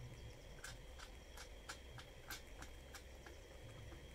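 Faint, irregular clicks and taps of hard plastic and metal parts knocking together as an angle grinder sliding stand and its plastic base are handled, about a dozen small knocks.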